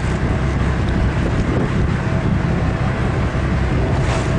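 Steady low rumble of a fishing boat's engine, with wind buffeting the microphone. A brief rush of noise comes near the end.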